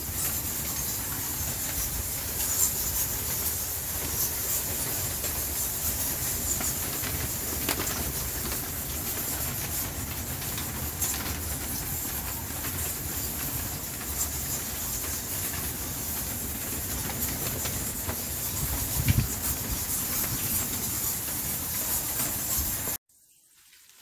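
Dense, steady high-pitched hissing chatter of a large bat colony swarming in a rock-crevice cave, with a low rumble underneath. It cuts off suddenly near the end.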